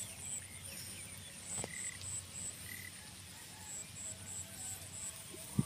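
Frogs and insects calling in a rice field: a steady high insect buzz with short, repeated high chirps. A single dull thump comes near the end.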